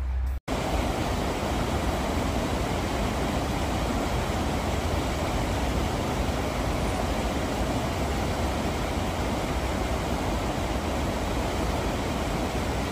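Steady rush of river water pouring over a low weir, starting abruptly about half a second in and holding even throughout.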